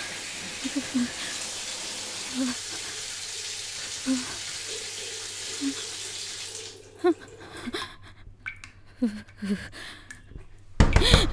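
Water running steadily in a bathroom, cutting off suddenly about two-thirds of the way through, while a woman lets out short whimpering sobs; near the end she gives a loud, sharp gasp.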